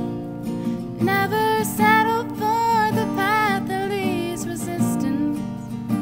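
A young woman singing a slow song to a strummed acoustic guitar. The guitar plays alone at first, and her voice comes in about a second in.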